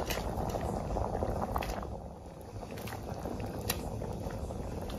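Curry gravy boiling in a kadai around pieces of egg chakuli: a steady bubbling simmer with scattered small pops.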